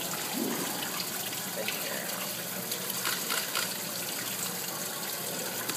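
Steady rush of running water in a seal pool, with a few brief splashes as the seal moves at the pool edge.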